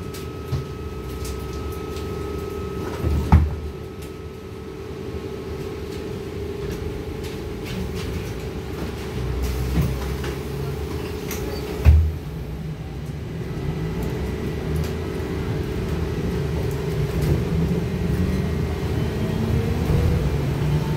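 Cabin sound of a Trolza-5265.00 Megapolis trolleybus: a steady hum throughout, with a few dull thumps, the loudest about twelve seconds in. A low rumble of the moving trolleybus builds through the second half.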